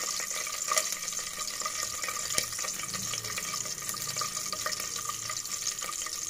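Whole spices and cashews sizzling in hot oil and ghee in an aluminium pressure cooker: a steady hiss with scattered small crackles and pops.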